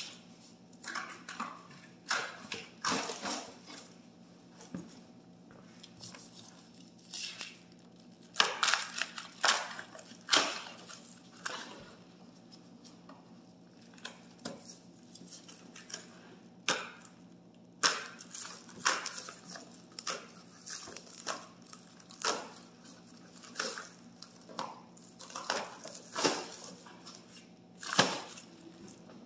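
Clear plastic stretch wrap on a crate being handled and pulled loose: irregular crinkling and rustling bursts every second or so, over a low steady hum.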